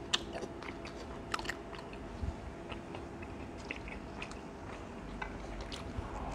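A person chewing pizza close to the microphone: many small wet clicks and soft crunches, with a bite into a pizza slice near the end.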